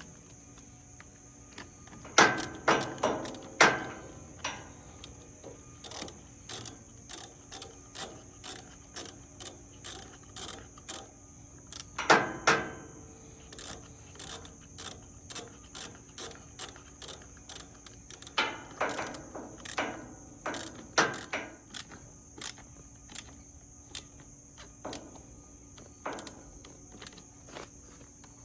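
Hand socket ratchet clicking as a bolt is worked, in runs of strokes with a few louder clattering bursts. A steady high cricket trill runs underneath.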